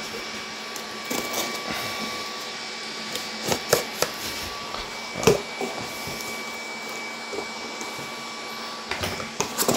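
Knife slitting the packing tape on a cardboard shipping box and the cardboard flaps being pulled open: a few sharp scrapes and crackles, the loudest a few seconds in. Under it, the steady whirr of GPU mining rig fans with a faint high whine.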